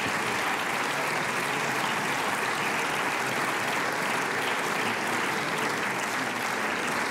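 Steady applause from many parliamentarians clapping together.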